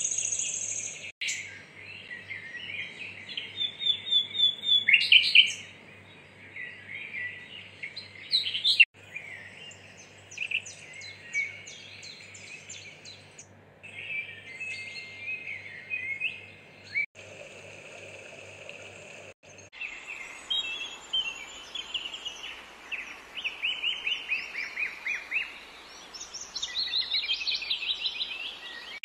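Birds chirping and calling in quick runs of high notes, with several abrupt brief dropouts. A high steady insect buzz fades out just after the start, and a low steady hum stops about two-thirds of the way in.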